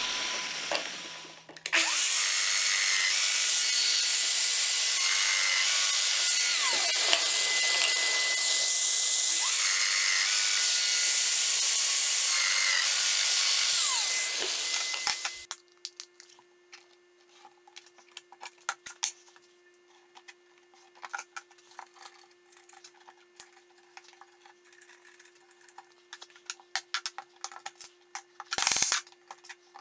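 Festool Domino joiner with dust extraction running as it plunges slot mortises into an oak board, steady for about thirteen seconds before stopping. Then small handling clicks and taps of wooden dominoes being fitted, with one short knock near the end.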